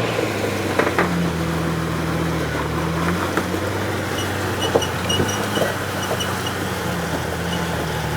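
Rock-crawling 4x4's engine running steadily at low revs as the vehicle works over rock, with a few sharp knocks and clicks from the rocks and drivetrain. Faint high chirps repeat from about four to six seconds in.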